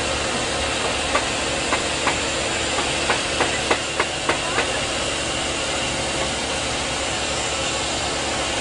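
Bee vacuum running steadily, with the hiss of air rushing in at the hose nozzle. In the first half comes a run of about ten sharp ticks as bees are sucked in and bounce down the hose.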